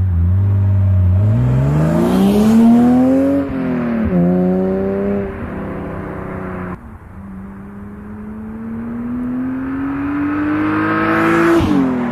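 BMW E36 328i's straight-six running through a Bastuck Group A exhaust with M3 headers and catalyst, accelerating hard. The engine note climbs steeply for about three seconds, drops sharply and holds lower, then after an abrupt break climbs slowly again and falls away near the end.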